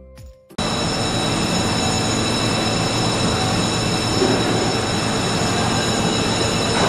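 Brief music cuts off about half a second in, replaced abruptly by loud, steady machinery noise from the fish-market quay: a broad rumble with a high-pitched whine made of several steady tones.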